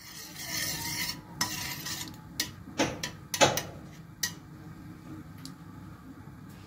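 Hot oil sizzling in a kadai for about two seconds, then a spoon knocking and scraping against the pan several times.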